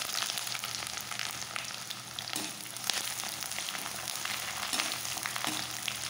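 Onion wedges sizzling and crackling steadily in hot mustard oil in a metal kadai, stirred with a perforated slotted spoon.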